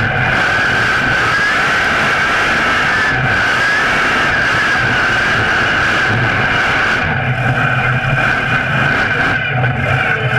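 Monster truck engine running hard under load, loud and continuous, picked up by a camera on the truck's own chassis beside a spinning tyre in the dirt. About seven seconds in, the engine note changes to a steadier low throb with uneven loudness.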